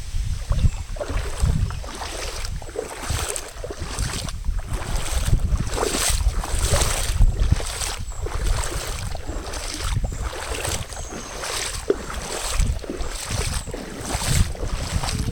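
Rubber boots wading through shallow floodwater and soaked ground, splashing step after step at a walking pace, with wind buffeting the microphone.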